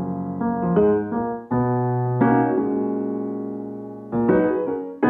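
Background piano music: chords struck one after another and left to ring and fade, one held for nearly two seconds in the middle.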